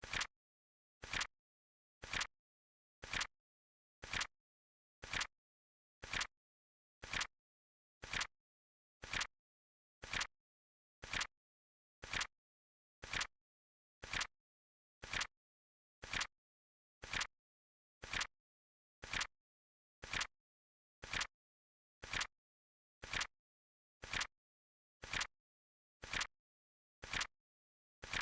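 Flip clock timer's flip sound effect: a short, sharp click once a second, evenly spaced, with silence between.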